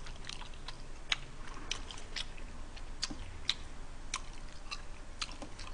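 Close-up chewing of undercooked, firm spaghetti, with small irregular crunchy clicks from the mouth.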